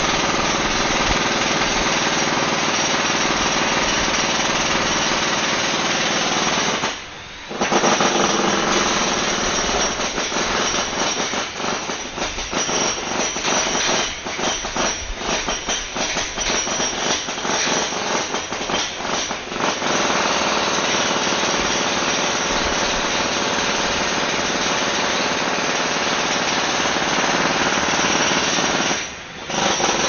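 Jackhammer hammering continuously on a building site. It stops briefly about seven seconds in and again near the end, and from about eleven to twenty seconds it runs in short, stuttering bursts.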